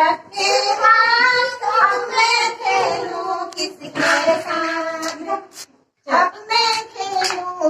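Young children singing a song together, with a brief break just before the end.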